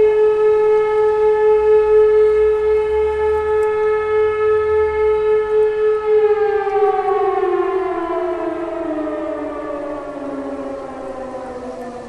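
WWII Elektror electromechanical air-raid siren, its 9-port high-tone unit sounding a steady howl at about 420 Hz, heard from a distance together with an E57 siren. About halfway through, the pitch starts to fall and the sound fades as the rotors wind down at the end of a blast of the fire-alarm signal that calls out the fire brigade.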